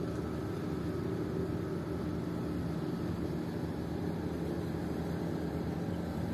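A small wooden motorboat's engine running steadily under way, an even hum with several held tones that does not change in pitch or loudness.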